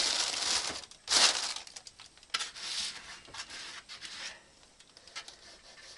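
Plastic bread bag rustling and crinkling as it is handled, in several loud, uneven bursts over the first four seconds, then a few faint clicks.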